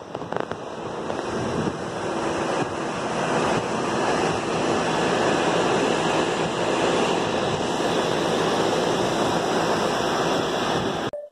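Steady rushing noise of wind buffeting the microphone, building over the first few seconds and cutting off suddenly near the end.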